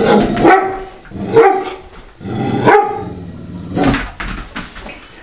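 Dog barking: four loud barks, a little over a second apart, as it picks on a cat.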